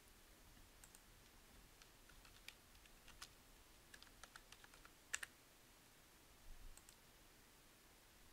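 Faint computer keyboard typing: scattered light key clicks, the sharpest about five seconds in.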